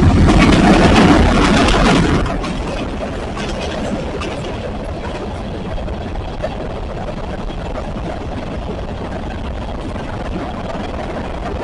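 CSX freight train passing: loud for about the first two seconds as the locomotives go by, then a steadier, quieter rumble as the train rolls on past.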